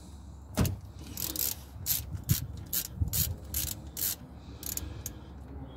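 Socket ratchet undoing the engine oil drain plug on a Rover 45 K-series sump: one sharp click about half a second in, then a run of short ratchet clicks, about two or three a second, as the plug is loosened.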